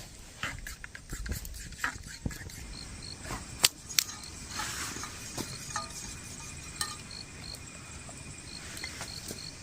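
Campfire crackling, with scattered sharp pops, two of them loud near the middle. Insects chirp in a steady repeating pattern behind it.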